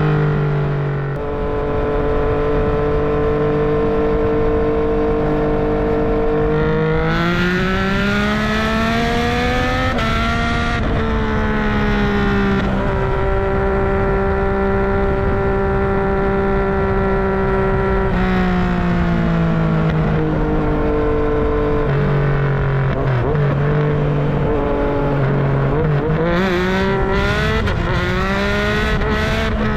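Yamaha MT-09's three-cylinder engine and exhaust while riding, holding a steady note, then a rising note under acceleration about a quarter of the way in that drops at a gear change. It settles steady again, falls as the bike slows past the middle, and rises once more near the end.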